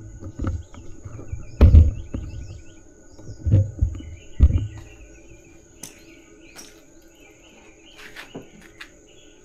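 Outdoor morning ambience: a steady high insect drone with scattered bird chirps. A few dull thumps, the loudest about two seconds in, come in the first half.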